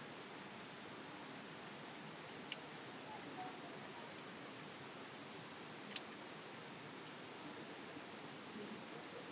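Steady hiss of water, with two short sharp clicks about three and a half seconds apart.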